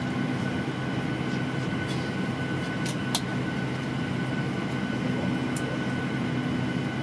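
Steady cabin noise inside a Boeing 737-800 during pushback: a constant low hum with a steady whine over it. A couple of faint clicks come about three seconds in.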